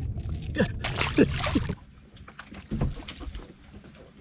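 Water splashing at the side of a boat as a small released blue catfish swims off, with a few brief words. The splashing stops abruptly less than halfway through, leaving quieter water sounds and a single low thump.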